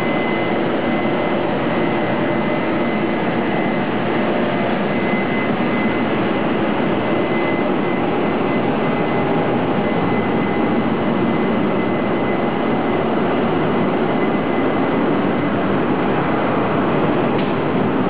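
Taiwan Railway electric locomotive E231 hauling a Fu-Hsing express out of the station: a loud, steady machinery noise with a thin high whine that fades partway through, as the locomotive and then the first coaches roll slowly past.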